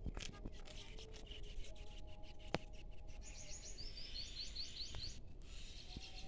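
Outdoor ambience with a small bird singing a quick run of short, high, repeated chirps for about two seconds midway through. Beneath it is a steady low rumble, with scattered clicks and one sharp click a little before the birdsong.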